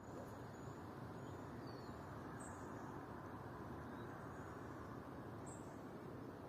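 A few faint, short, high bird chirps, spaced out, over a steady low rushing background noise.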